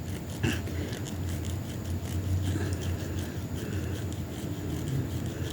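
Nail file rubbed back and forth across a fingernail in faint scratchy strokes, smoothing down a tea bag glued over a split nail.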